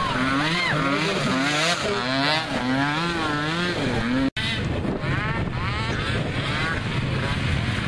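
Small youth mini-quad ATV engines revving up and down over and over as riders pass, with other engines running underneath. The sound breaks off for an instant a little past halfway.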